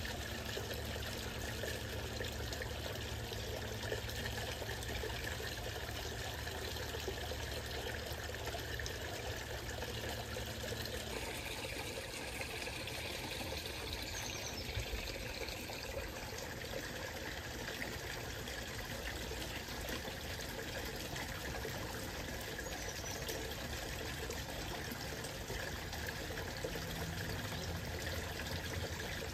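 Water pouring and trickling steadily into a garden fish pond.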